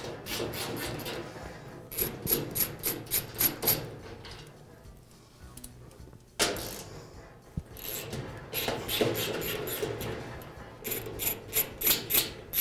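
Socket wrench ratchet clicking in quick runs of strokes, about four clicks a second, as bolts are backed out of a grill's sheet-metal bottom panel. There is a single sharp knock about halfway through.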